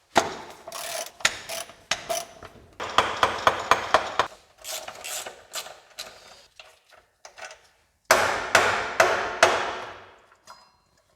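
Hand tools on metal: a series of sharp metallic knocks and clicks, with a quick run of clicks a few seconds in, as a stuck fastener on the motorcycle's front forks is worked loose.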